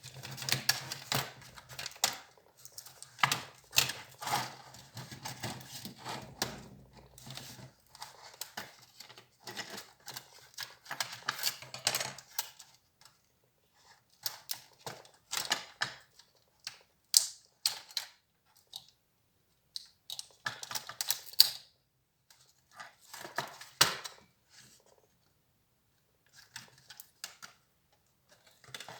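Irregular clicks, taps and rattles of hard plastic and small metal parts being handled as an HP Compaq 6910p laptop is taken apart, coming in clusters with short pauses between them.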